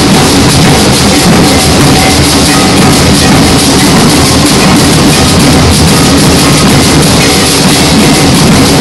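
A group of large shoulder-slung bass drums, struck with sticks, playing together in a dense, continuous rhythm without a break. It is very loud and recorded on a phone.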